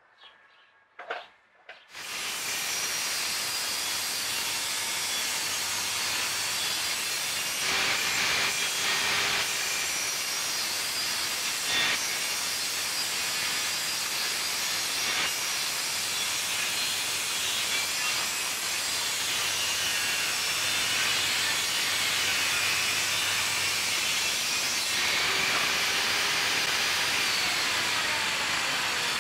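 Table saw running and cutting through a thick wooden beam, starting abruptly about two seconds in and going on steadily.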